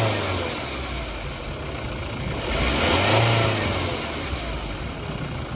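2007 Kia Sorento 2.5 L turbodiesel engine being blipped: it drops back toward idle, then revs up and falls back once about three seconds in, with an airy hiss during the rev. The hiss is boost air escaping from a split in the rubber intercooler outlet hose.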